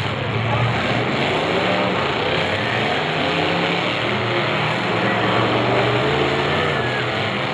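Several demolition derby car engines running and revving together, their pitches rising and falling over one another.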